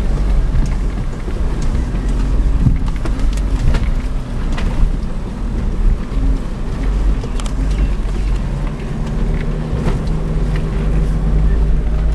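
Inside the cabin of a 1998 Toyota RAV4 driving slowly over uneven grass: its four-cylinder engine runs under a heavy low rumble, with scattered knocks and rattles from the body over the bumps.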